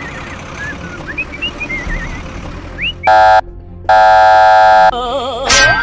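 A loud vehicle horn honks twice, a short blast and then a longer one about a second later, after light background music with chirping whistle-like glides. Near the end a warbling, wavering tone follows.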